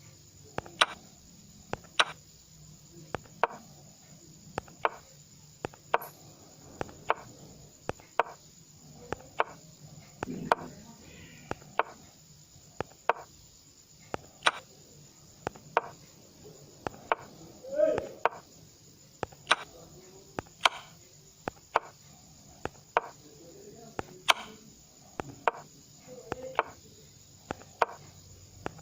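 Sharp clicks of chess pieces being set down on a board, coming irregularly about once a second as moves are played quickly.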